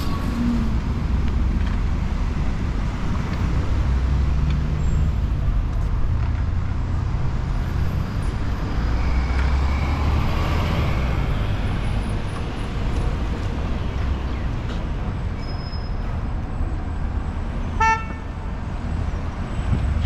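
Steady rumble of city street traffic as cars pass, with one short vehicle horn toot near the end.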